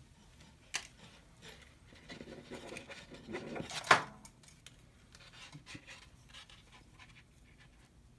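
Hands handling steel fishing cable and cutters while trimming the cable's tag end: scattered small clicks and rubbing, with one louder noisy burst about four seconds in.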